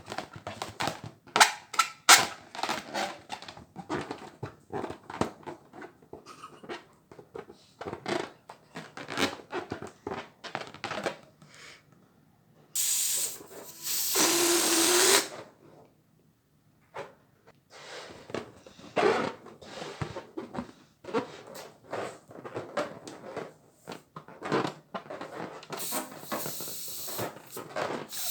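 Balloons popping one after another in quick, irregular succession, with two longer hissing rushes, one about halfway through and one near the end.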